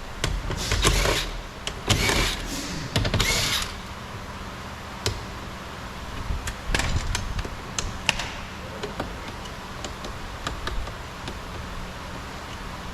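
Tools and plastic door-trim parts being handled while the trim's 10 mm screws are removed: three short bursts of scraping and rattling in the first few seconds, then scattered light clicks.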